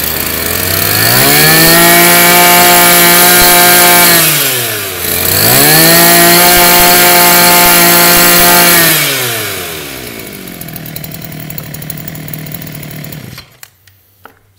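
Maruyama 26cc two-stroke brush cutter engine revved from idle to full throttle twice, each time held for about three seconds, then dropping back to idle. It idles for a few seconds and shuts off near the end. It runs very sharp and strong, the sound of a healthy engine.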